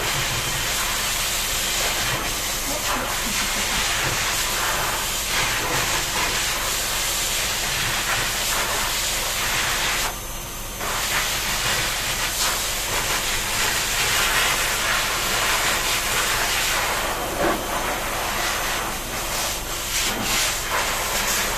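Water spraying steadily from a shower nozzle, a continuous hiss that breaks off briefly about ten seconds in, then resumes.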